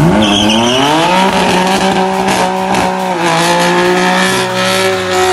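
Car engine revving up over about a second and then held at high revs through a burnout, with tyre squeal and spinning-tyre noise underneath.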